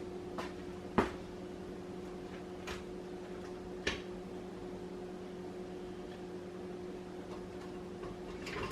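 Steady low electrical hum in a kitchen, with a few sharp knocks, the loudest about a second in and another near four seconds.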